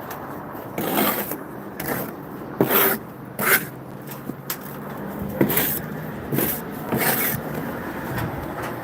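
Masonry work: about seven short scrapes and knocks of tools or blocks against brick and mortar, over a steady low hum.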